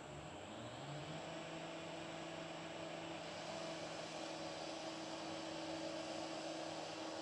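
A steady low mechanical hum over a faint hiss, stepping up slightly about a second in and growing a little louder.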